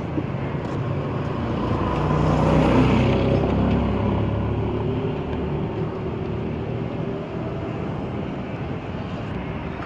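A motor vehicle's engine passes over a steady background of traffic. It swells to its loudest about two to three seconds in, then fades back to the hum.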